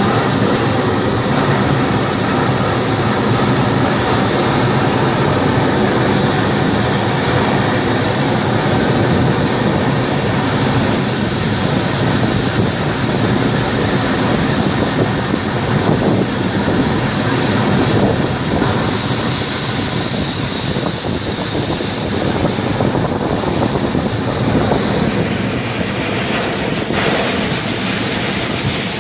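Hot-air balloon's propane burner firing in one long, continuous blast: a loud, steady hiss.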